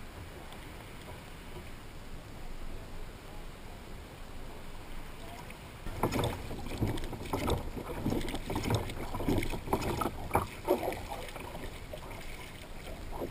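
Wind and water lapping against a plastic sit-on kayak. About six seconds in come a run of irregular knocks, bumps and splashes as the kayak is moved about on the water.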